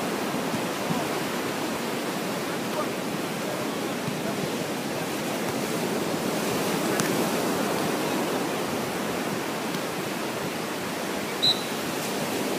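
Steady rushing beach ambience of surf and wind. A short, high chirp comes about eleven and a half seconds in, and a faint tap about seven seconds in.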